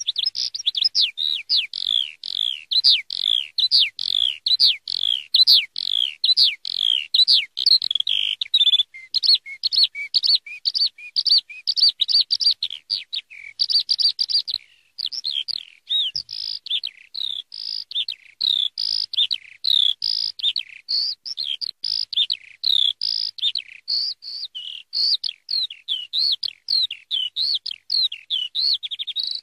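Eurasian skylark singing: a long, unbroken stream of rapid, high trills and warbling notes, with a brief break about halfway through.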